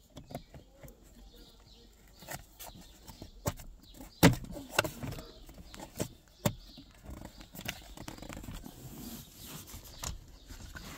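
Hand-handling noises of car interior parts: scattered clicks and knocks as a wiring plug is pushed onto a 12-volt power outlet and the hard plastic console trim holding it is moved, with the sharpest knock about four seconds in.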